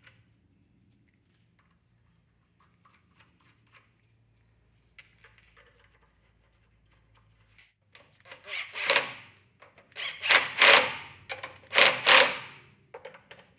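Makita cordless impact driver hammering in four or five short bursts in the second half, driving in the fasteners that hold the air filter base to a Honda GX160 carburetor. Faint clicks of parts being handled come before it.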